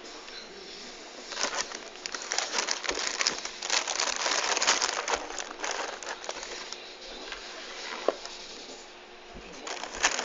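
A cereal box crinkling and being scratched as a cat bats and claws at it: a run of quick, scratchy rustles from about a second and a half in to about seven seconds, a single click a little later, then more rustling near the end.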